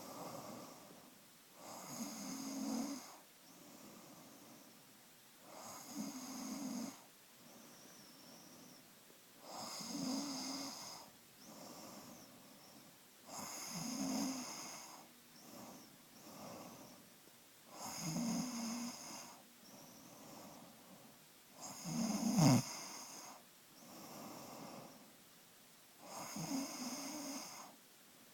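Snoring in sleep: a rasping snore on each in-breath, about one every four seconds, with softer breaths between. The loudest snore comes about three quarters of the way through.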